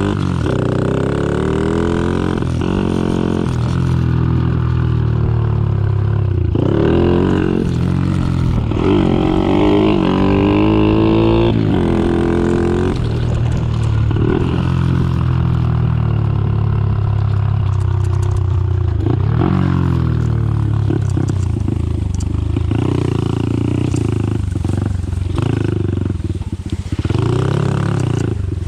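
Honda SL70's small single-cylinder four-stroke engine running hard, revving up and dropping back over and over as the bike is ridden through the gears.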